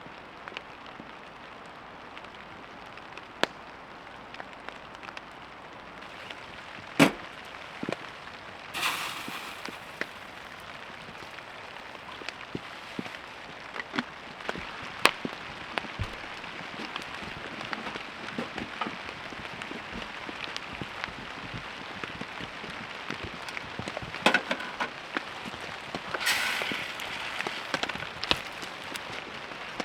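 Steady rain pattering on the tent and tarp, with scattered sharp taps of single drops. A few louder knocks come through, and two short hissing bursts come about nine seconds in and near the end.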